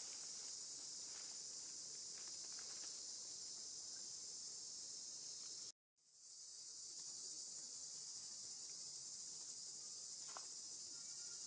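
Steady high-pitched chorus of insects, cutting out for a moment about six seconds in and fading back.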